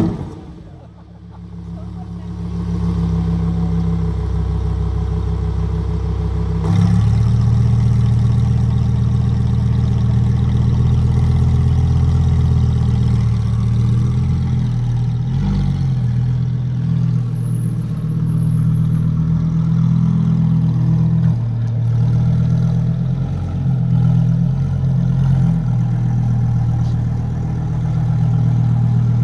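Lamborghini Huracán EVO's 5.2-litre V10 idling steadily just after starting, its note stepping up and getting louder about seven seconds in.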